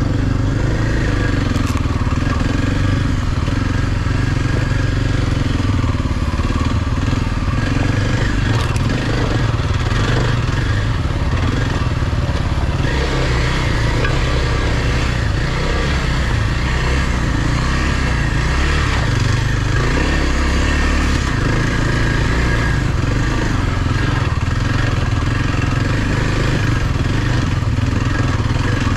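Kawasaki KLX230's air-cooled single-cylinder four-stroke engine running at a steady level at trail speed, heard from the rider's own bike, with a second dirt bike running ahead.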